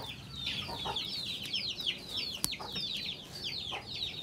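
Young birds peeping continuously: short, high, falling peeps, several a second. A single sharp click about two and a half seconds in.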